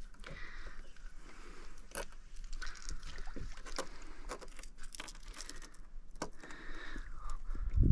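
Gloved hands handling a mesh landing net on a boat's deck: the net rustles and there are scattered light clicks and taps throughout.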